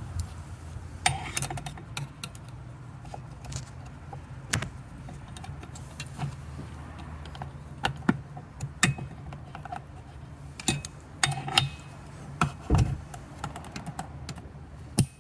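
Irregular small metallic clicks and taps as a snap ring is worked by hand back onto the knob shaft of a John Bean V3300 wheel aligner's wheel clamp, over a steady low hum, with a dull thump about two-thirds of the way through.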